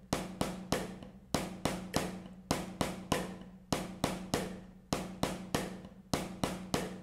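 Wooden drumsticks striking a drum practice pad in a steady sixteenth-note accent exercise at about 50 beats a minute: three even strokes then a short gap, repeating once a beat, each stroke ringing briefly.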